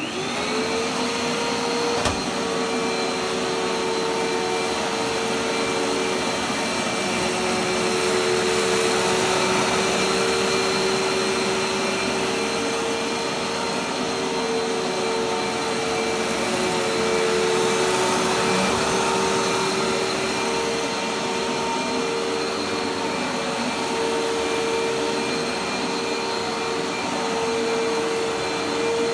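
Dirt Devil Dash bagless vacuum cleaner switching on, its motor spinning up to a steady whine within the first second and then running continuously. There is one sharp click about two seconds in.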